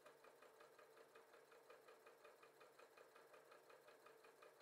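W6 N 5000 electronic sewing machine stitching at a steady speed with a twin needle, very faint: an even ticking of about six stitches a second over a steady hum.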